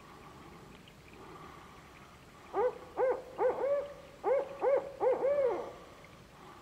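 Barred owl hooting: a series of about eight hoots over three seconds, the last one drawn out and falling in pitch. It is answering a distant barred owl.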